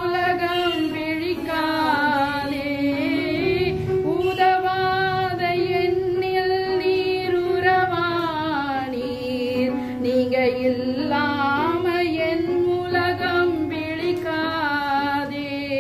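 A woman singing a Tamil Christian worship song, in long held notes that slide from pitch to pitch.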